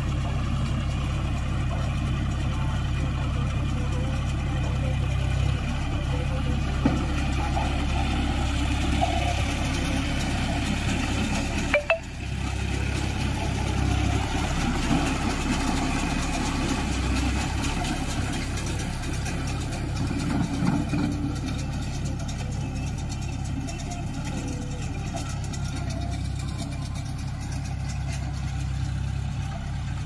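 John Deere tractor's diesel engine running steadily as it drives a Bharat round baler through straw stubble, with a sharp click and a brief dip in sound about twelve seconds in.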